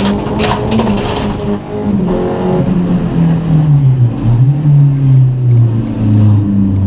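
Rallycross car's engine heard from inside the cockpit, running hard at high revs, then dropping steadily in pitch as the car slows for a corner about three seconds in. It picks up again out of the bend and drops once more near the end. A few sharp knocks come in the first second.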